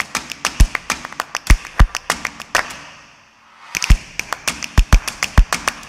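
Percussive intro music: a quick beat of sharp clicks with low thumps, dropping out for about a second near the middle and then starting again.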